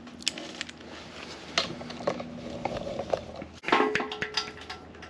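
Hand tools clinking against metal as a wrench is picked up from the tool table and fitted to the timing-belt tensioner: a handful of separate clicks and clanks, with the loudest cluster about three and a half seconds in.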